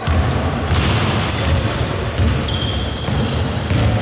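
Basketball game play: the ball bouncing on the court and players' sneakers squeaking in short high chirps as they run and cut.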